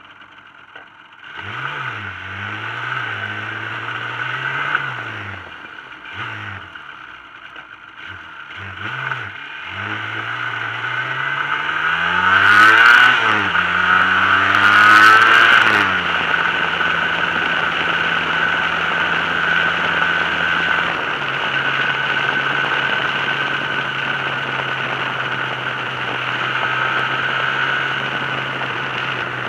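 Yamaha RD350 YPVS two-stroke parallel-twin engine accelerating through the gears while riding, its revs climbing and dropping at each shift, running hardest about twelve to sixteen seconds in, then holding steady revs at cruise with a step down about twenty seconds in. A steady rush of wind and road noise runs underneath.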